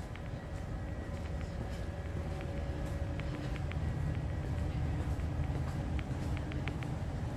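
Steady low rumble of a cruise ship's interior, with faint steady machinery hums over it and scattered small clicks and crackles.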